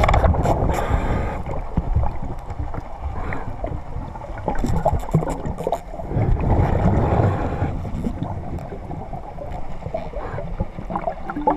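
Muffled underwater water noise: low rumbling and gurgling of water moving over the camera, with scattered clicks and crackles.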